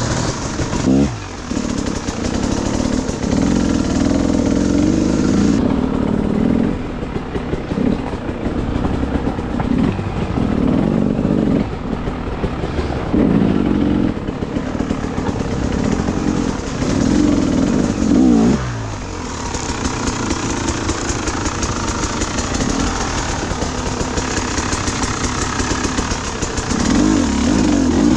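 Enduro dirt bike engine revving in repeated short throttle bursts as it is ridden over rough ground, the revs falling away sharply twice, about a second in and again past halfway.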